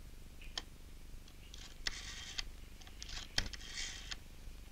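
Rotary desk telephone being dialled: the dial is turned and runs back twice, each run a scratchy whirr of about a second, with a few sharp clicks in between.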